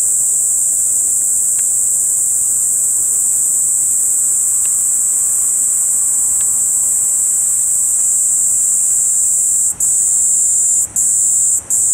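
Kaempfer cicada (niiniizemi) singing: a loud, continuous, very high-pitched shrill buzz that breaks off briefly a few times near the end.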